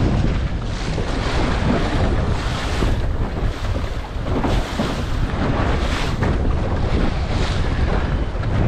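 Strong wind buffeting a head-mounted GoPro's microphone aboard a small sailing dinghy in rough water, a continuous gusty rumble with the rush and splash of waves beneath it.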